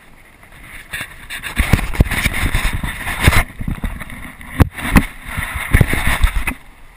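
Action camera being handled and repositioned on its mount: a string of loud, irregular bumps and rubbing against the camera, with a sharp click about four and a half seconds in.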